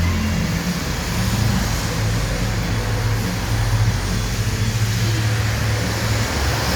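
Renault Fluence 2.0 four-cylinder engine idling steadily during a throttle-body reset, its idle note stepping up slightly about half a second in.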